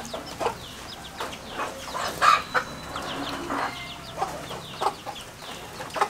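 Domestic hen clucking while her chicks peep, with many short, high, falling peeps throughout and a louder call a little past two seconds in.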